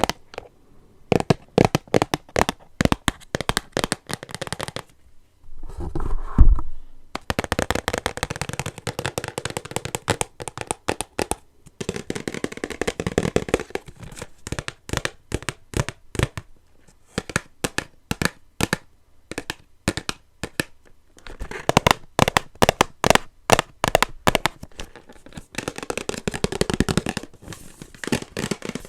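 Rapid fingertip tapping on a cardboard blind box, with stretches of rubbing and crinkling of its packaging and one loud low thump about six seconds in.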